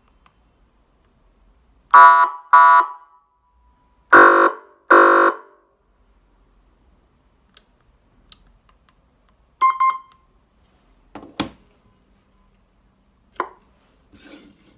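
12 V electronic siren horn speaker sounding short, loud horn-like tone blasts: two quick blasts, then two longer ones, then a briefer blast, with a few sharp clicks near the end.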